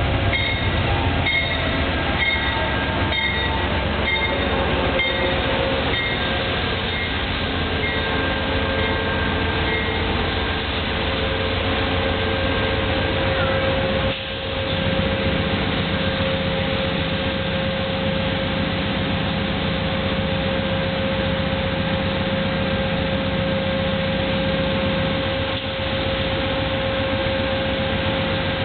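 Amtrak diesel passenger train rolling in alongside the platform, its locomotives' engines and wheels giving a steady rumble. For the first several seconds an electronic beeping repeats about once a second and then fades out. About halfway through, a steady low engine hum joins and runs for some ten seconds.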